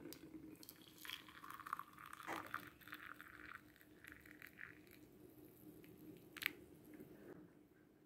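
Hot water poured from an electric kettle into a ceramic mug of loose tea leaves: a faint trickling splash that thins out after a few seconds. A single sharp click comes about three-quarters of the way through.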